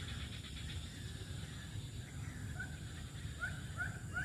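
A dog whimpering in short, high, rising yelps, a few in quick succession in the second half.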